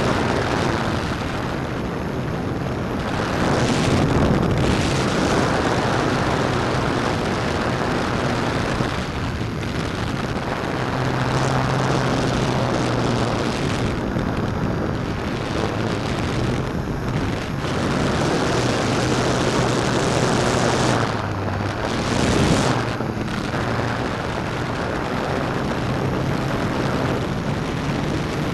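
Hexacopter's electric motors and propellers heard close up from a camera strapped under its battery in flight: a loud rushing drone that swells and fades every few seconds, with a low hum under it that steps up and down in pitch as the throttle changes.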